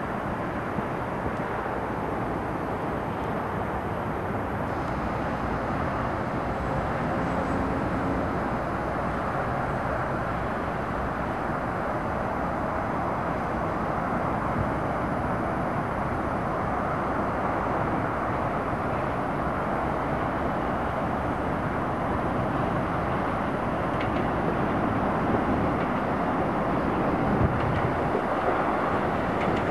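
E-series metro train approaching on an open-air line: a steady rumble that grows slightly louder toward the end, with road traffic mixed in.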